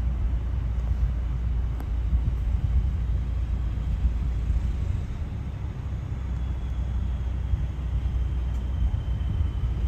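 Steady low rumble of an idling vehicle heard from inside its cabin.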